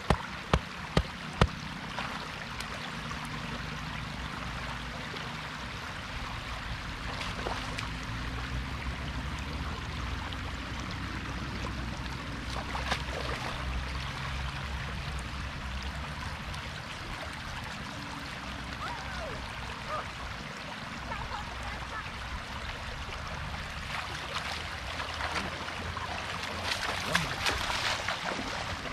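Shallow floodwater rushing and gurgling steadily around a stake and net. In the first second and a half, about four sharp knocks, roughly two a second, as a wooden club drives a wooden stake into the ground. Louder splashing near the end.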